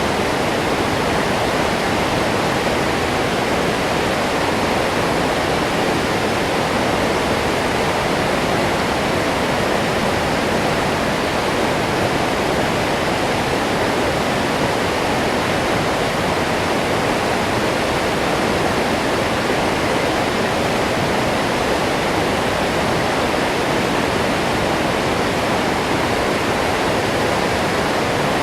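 Waterfall: water falling and crashing in a steady, unbroken rush.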